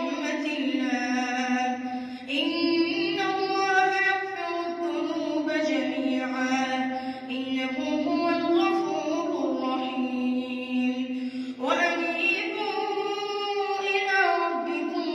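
A boy reciting the Quran in melodic tajweed chant, a single high voice holding long drawn-out notes, pausing briefly for breath about two seconds in and again about three quarters of the way through.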